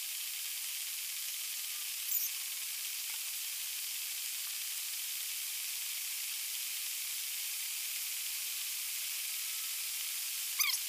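Steady high hiss, with a short falling chirp about two seconds in and another near the end.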